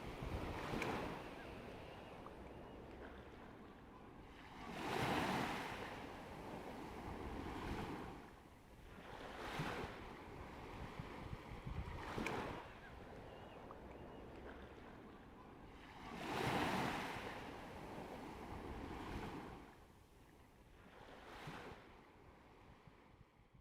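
Sea waves breaking and washing in, the surf swelling and ebbing every few seconds, growing fainter toward the end.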